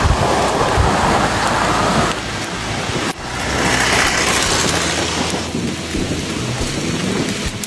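Heavy rain pouring down in a storm: a loud, steady rushing hiss that changes level abruptly a few times.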